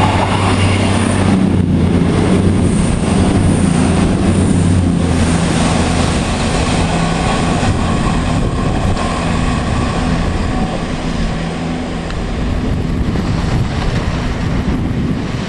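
CrossCountry Voyager diesel multiple unit passing close by: a steady hum from its diesel engines over the rumble of wheels on rail. The engine hum fades after about five seconds while the rumble goes on.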